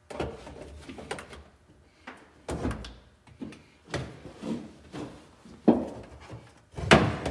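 A series of irregular knocks and scrapes, about six, of things being handled at a truck's fuel tank while its depth is measured; the loudest knock comes near the end.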